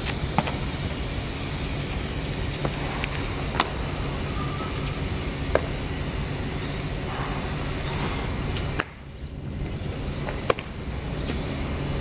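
A baseball smacking into leather gloves during a game of catch: several sharp pops a few seconds apart, over a steady low hum and wind noise.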